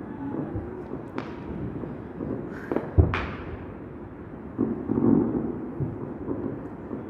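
Fireworks going off: scattered pops and bangs, the loudest bang about three seconds in with a short hiss just before it.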